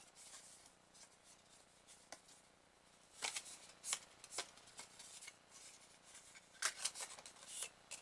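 A scored sheet of printer paper being folded into a box by hand: faint, scattered crisp rustles and creases, busier about three seconds in and again near the end.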